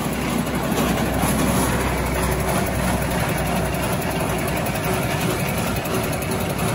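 Corn puff extrusion production line with a twin-screw extruder running, giving a steady, even machine hum.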